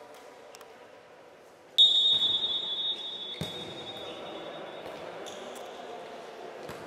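Referee's whistle blown once: a loud, shrill blast of about a second, starting sharply about two seconds in and ringing on in the hall. A few sharp ball knocks are heard on the court around it.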